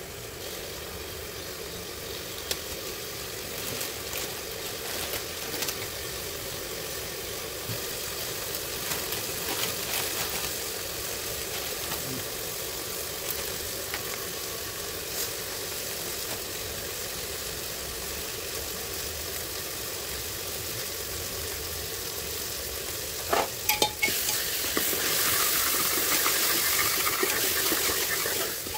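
Chicken and masala frying in a pan, sizzling steadily while a spoon stirs and taps against the pan. About 24 seconds in, a few sharp knocks are followed by a louder, hissier sizzle.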